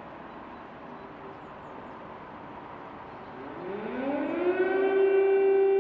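Steady hiss, then about three seconds in a tsunami warning siren winds up, rising in pitch, and settles into one loud steady tone.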